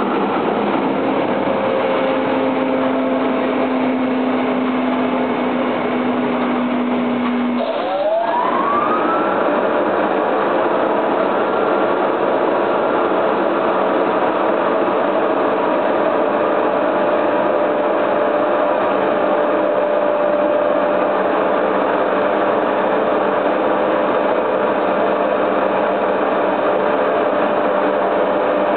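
Steady loud rush of steam venting and machinery running at an EPS block moulding machine. About eight seconds in, a motor spins up with a rising whine and then runs on at a steady pitch.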